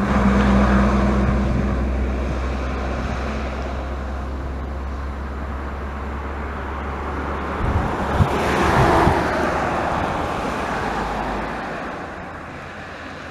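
Airbus A320neo's two Pratt & Whitney PW1127G geared turbofans at takeoff thrust, a steady jet noise with a low drone that fades gradually as the airliner lifts off and climbs away. Two brief thumps about eight seconds in.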